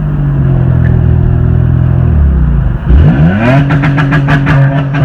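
Honda car engine running loud through an open exhaust cutout, holding steady revs, then dropping off about two and a half seconds in and revving back up before settling. A fast run of sharp ticks sits over the engine near the end.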